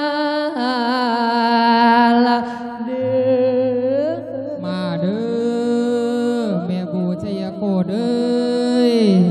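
A Thai Buddhist monk's voice, amplified through a microphone, singing a drawn-out Isan lae chant for the dead: long held notes with vibrato that slide up and down, wordless melismas between phrases. A low steady hum sits underneath for a few seconds in the middle.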